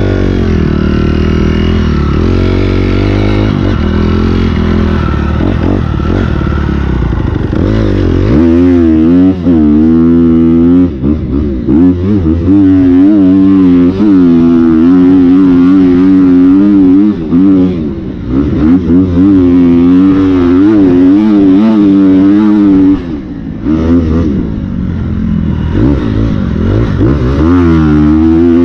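Dirt bike engine running at low revs for the first several seconds, then revving up and down over and over as the bike is ridden, with a few brief dips where the throttle closes.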